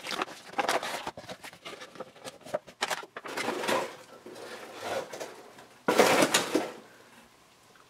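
Cardboard box and plastic insert of a vinyl Funko Pop figure being opened and handled as the figure is pulled out: a string of clicks, scrapes and rustles, with a louder rustle about six seconds in.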